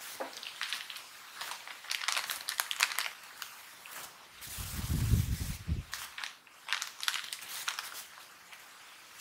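Crinkly plastic snack wrapper of a Nissin Eggnog Cookies packet being handled and turned over, crackling in quick irregular bursts, with a low muffled thump about five seconds in.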